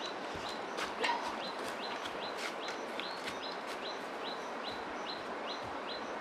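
A bird calling over and over, a short rising high chirp about three times a second, over a steady rushing background. There is a brief louder noise about a second in.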